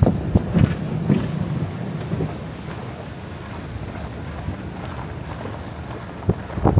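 Off-road vehicle driving over a rough dirt track: a steady low rumble with wind noise, and several sharp knocks and jolts in the first second and a half and again near the end.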